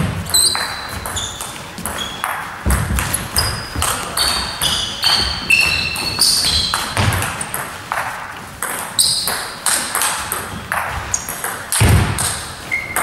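Table tennis rally: the ball is struck back and forth between bats and table in a steady run of sharp clicks, about two a second, each leaving a short high ringing ping. A few low thuds fall in among the hits.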